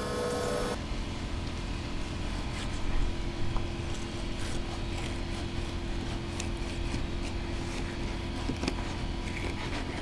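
Fillet knife skinning a bonnethead shark fillet on a plastic cleaning board: scattered light clicks and scrapes of the blade and the flesh against the board. Under it runs a steady low rumble.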